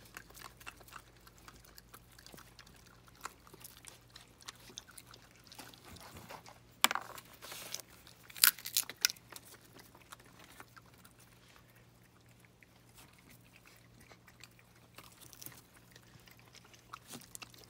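Raccoons crunching and chewing dry food, with many small scattered clicks and a few sharper knocks between about 7 and 9 seconds in.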